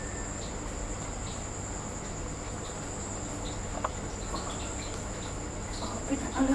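Night insects trilling steadily on one continuous high-pitched note, with a few faint clicks and soft knocks near the end.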